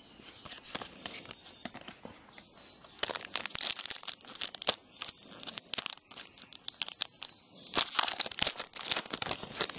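Foil trading card pack being torn open and its wrapper crinkled by hand, in several bursts of crackling, loudest about three to five seconds in and again near eight seconds.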